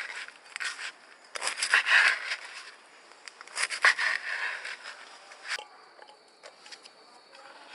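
Knife sawing through crisp fried medu vadai (urad dal fritters) on a wooden chopping board, in three short runs of strokes. About two-thirds of the way in there is a sharp click, and after it only faint light ticks.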